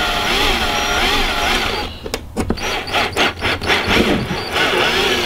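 Cordless drill driving a black drywall screw through a curtain track into the van's sheet metal; the motor whine rises and falls in pitch with the trigger and the load. Around two seconds in it breaks into a run of sharp clicks, then runs again.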